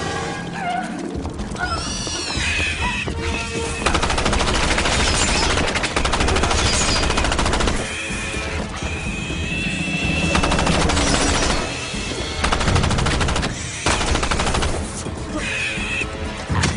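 Long bursts of rapid automatic gunfire, each several seconds long with short gaps between them, over a film score.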